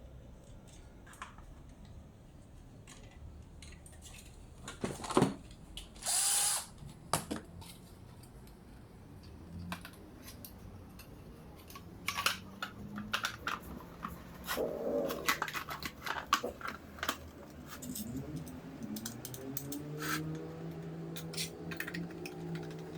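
Power drill running in short bursts, mixed with clicks and knocks of parts and tools being handled; near the end the motor runs steadily for a few seconds.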